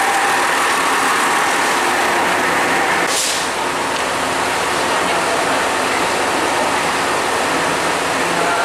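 Trains at a covered station platform: a steady hum of running train equipment, with a short hiss about three seconds in.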